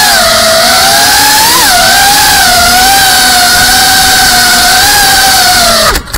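GEPRC Cinelog 35 FPV drone's motors and propellers, recorded by its onboard RunCam: a loud whine over rushing hiss, its pitch wavering with the throttle. Near the end the pitch falls and the sound cuts off suddenly.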